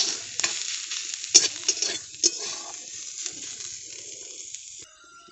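Chopped onion, green chilli, garlic and ginger sizzling in oil in a kadai while being stirred, the stirring utensil knocking and scraping against the pan several times. The sizzling stops abruptly near the end.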